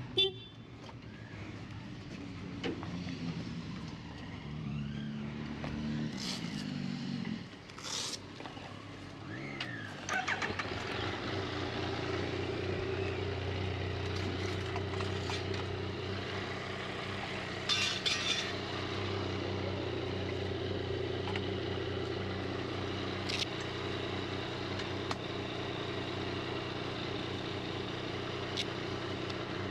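Motor vehicle engines: changing engine note with pitch rising and falling for the first ten seconds, then an engine running steadily from about ten seconds in, with a few sharp clicks.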